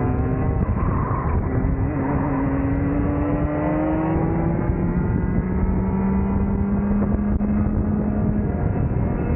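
Rotax two-stroke kart engine under full power, its pitch climbing slowly as the kart gathers speed, over heavy wind rush on the onboard microphone.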